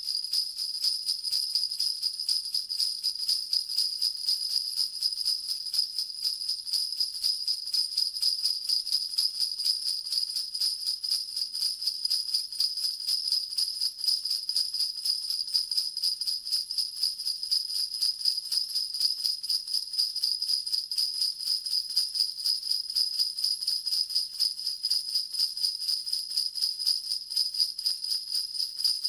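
Sleigh bells shaken fast and without a break in a looped Christmas 'Santa' rattle, a steady, bright, high-pitched jingling of rapid even strokes.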